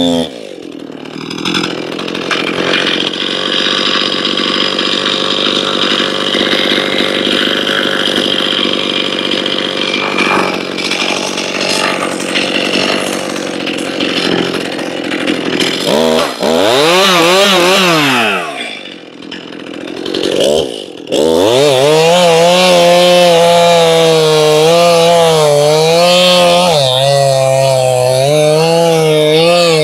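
Stihl MS271 Farmboss 50cc two-stroke chainsaw running. It is revved up and back down once a little past halfway. From about two-thirds in it is run hard into a rip cut along the log's grain (noodling), its engine note wavering up and down as it bogs under the load.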